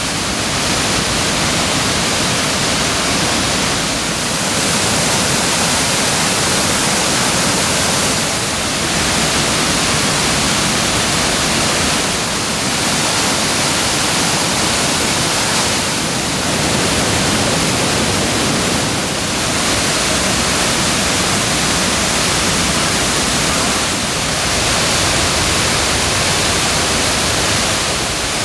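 Waterfall rushing: a loud, steady roar of falling water that swells slightly every few seconds.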